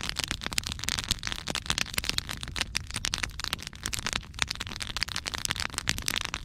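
Log campfire crackling, with many irregular sharp snaps.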